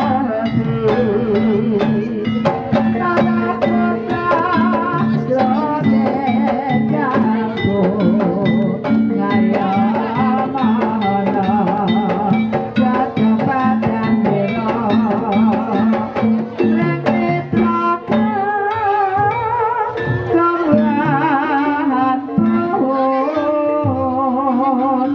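Kuda kepang ensemble music played live: drums and gong percussion keep a steady beat under a wavering, ornamented melody line, with a low held tone beneath.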